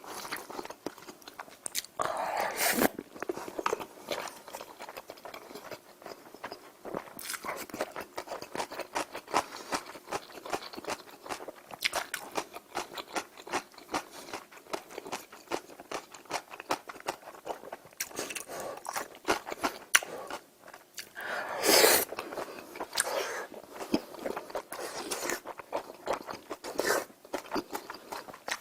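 A person eating close to the microphone: steady chewing with wet mouth clicks and lip smacks. There are two louder, longer noises, one about two seconds in and one some twenty-one seconds in.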